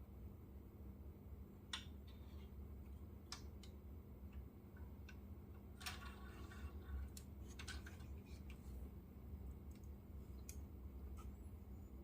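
Faint handling noises: scattered light clicks, with a cluster of small clicks and rustling about six to eight seconds in, over a low steady hum.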